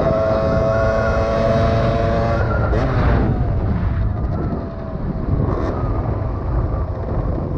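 Rieju MRX dirt bike's engine running at steady cruising revs, then dropping in pitch as the throttle is eased about two and a half seconds in, under a heavy rush of wind on the microphone.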